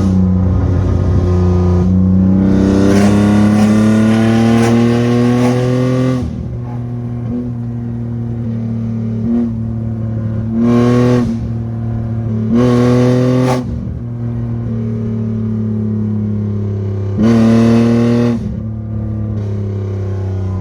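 BMW E34 with a catless exhaust accelerating, the engine note climbing steadily for about four seconds before the throttle closes and it drops away. Three short, loud bursts of throttle follow later, each rising briefly in pitch, with the engine running steadily in between.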